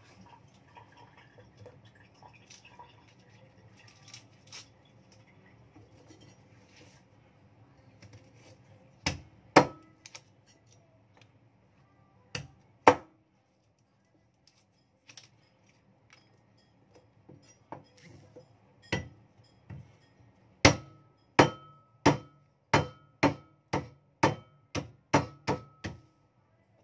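Kitchen knife chopping lemongrass stalks on a wooden chopping board: light handling clatter at first, then a few heavy blade strikes, and later a quick even run of about a dozen chops, roughly two a second, each followed by a short ring.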